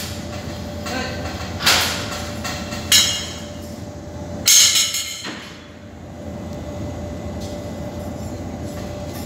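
Steel frame scaffolding clanking and scraping as workers climb and shift on it: a few loud metal knocks and scrapes in the first half, over the steady hum of a large hall.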